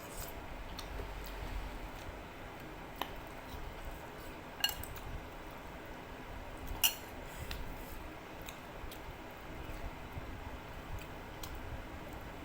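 A spoon or fork clinking sharply against a bowl several times while eating noodle soup, the two loudest clinks coming about four and a half and seven seconds in. An electric fan hums steadily underneath.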